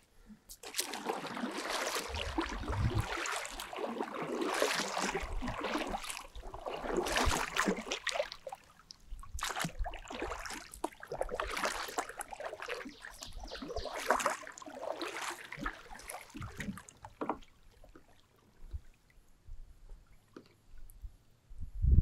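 Water splashing and sloshing around a kayak in repeated surges about a second long, dying down after about seventeen seconds into faint scattered clicks.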